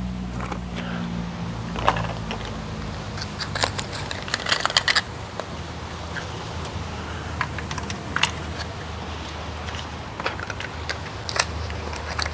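Light metallic clicks and clinks of new spark plugs being handled and dropped into the Corolla's plug wells, with a quick run of clicks about four to five seconds in, over a low steady hum.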